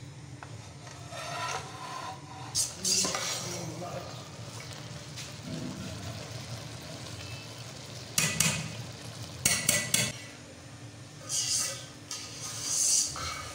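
A slotted metal spoon stirring rice through boiling stock in an aluminium pot, scraping against the pot in about five short bursts over a steady low rumble.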